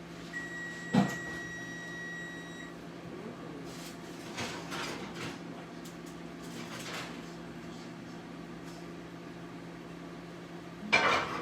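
Kitchen appliance timer beeping a long, steady high tone that stops about two and a half seconds in, signalling the bake is done, with a sharp click about a second in. A steady low hum runs underneath, and a loud knock comes near the end.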